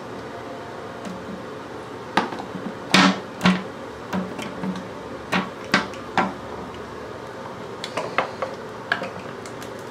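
Irregular clicks and light knocks of a plastic toilet seat and lid and a screwdriver being handled while the seat's hinge bolts are fitted, the sharpest pair about three seconds in, over a steady background hum.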